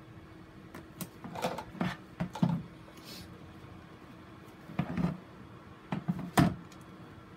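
Gloved hands handling a plastic grid mounting board and a sphagnum moss ball: two bursts of clicks and knocks as the plastic board is shifted and pressed against the plastic tub, the first about a second in, the second a little before the end, over a faint steady hum.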